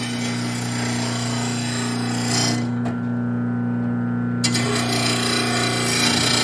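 VEVOR 2/3 HP 500 W lawn mower blade sharpener running with a steady electric-motor hum while a steel mower blade is drawn across its grinding wheel, a harsh grinding noise. About halfway through the grinding stops for over a second, leaving only the motor hum, then starts again on the next pass.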